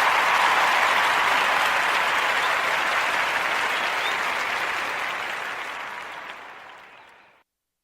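Applause, even and steady, fading out over the last couple of seconds to silence.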